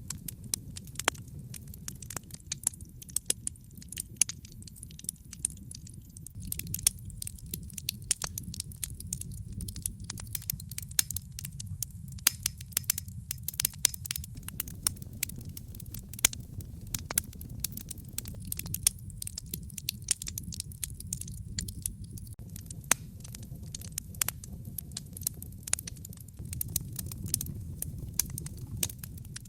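Wood fire crackling: many irregular sharp snaps over a steady low rumble of the flames.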